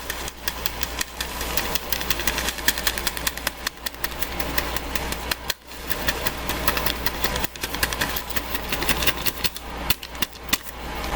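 Countertop blender running, chopping hot roasted tomatoes with water into a sauce, with a rattling, knocking chop from the chunks against the jar. It dips briefly about halfway through.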